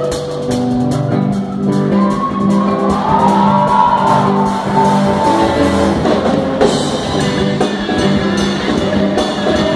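Live worship band music in a large hall: drum kit beat with cymbal strikes under sustained chords, with a melody line carried over them for a few seconds.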